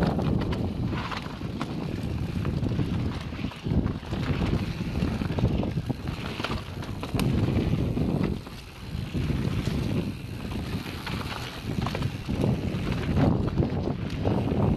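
Wind buffeting the microphone of a rider-mounted action camera on a mountain bike descending a dirt singletrack, mixed with the rumble of knobby tyres on dirt and the bike's rattles and clicks over rough ground. It drops briefly about eight seconds in.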